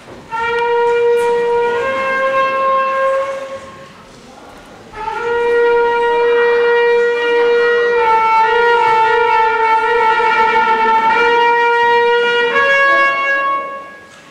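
A horn blown into the end of a gas-filled Rubens' flame tube, sounding held notes: a note that steps up slightly after about a second and a half, a break of about a second, then one long note held for about seven seconds that ends in a short higher note. The horn drives forced vibrations of the gas column in the tube.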